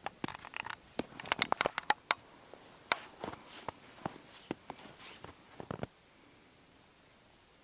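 Footsteps crunching in snow close to the microphone: irregular crackles and clicks, thickest in the first two seconds, thinning out and stopping about six seconds in.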